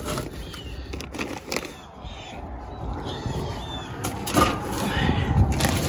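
Handling noise as junk is picked up and moved on a deck: rustling and scraping with a few sharp knocks, and a few faint high chirps in the background.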